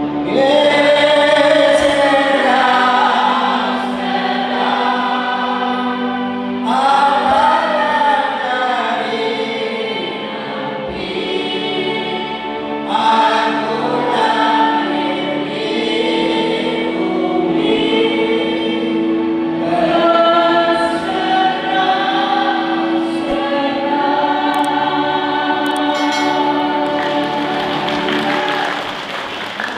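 Choir singing a hymn-like song together, in phrases of long held notes, fading near the end.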